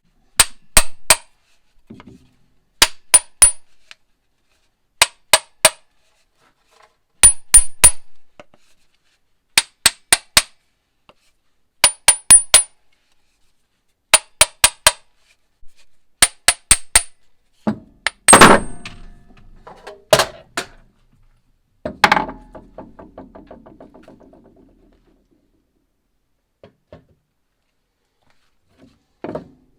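A hammer striking metal in quick sets of three taps, one set about every two seconds. From about eighteen seconds in come three heavier metallic clanks, and the last rings on for a couple of seconds.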